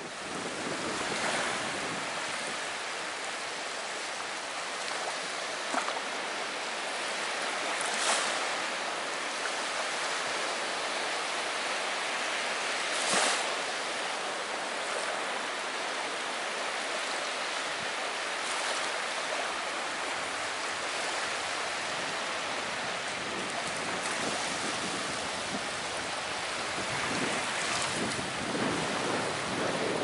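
Small waves breaking and washing up a sandy shore: a steady hiss of surf, with two brief louder moments about 8 and 13 seconds in. Wind rumbles on the microphone near the end.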